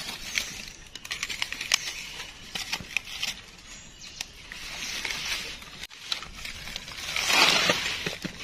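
Dry forest leaf litter rustling and crackling, with many scattered light clicks and a louder stretch of rustling about seven seconds in.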